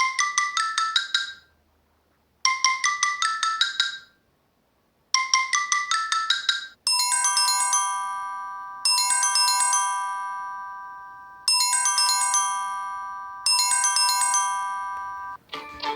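Samsung Galaxy J1 Ace ringtones previewed in turn. A quick run of marimba-like notes plays three times with short gaps. About seven seconds in, a different ringtone takes over, a chime-like chord struck four times and left to ring out. Another ringtone starts near the end.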